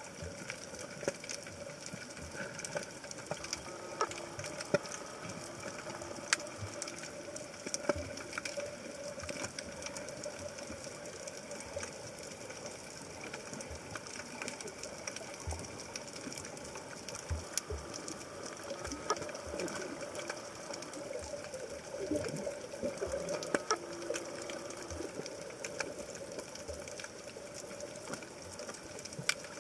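Underwater ambience: a steady hum with scattered sharp clicks and crackles throughout, a few of them louder.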